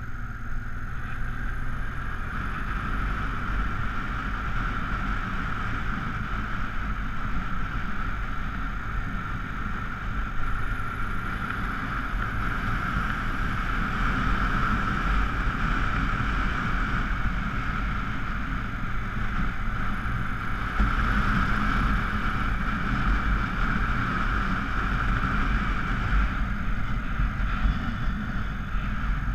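Honda Africa Twin XRV750's V-twin engine running steadily under load as the motorcycle climbs, mixed with wind rush over the bike-mounted camera.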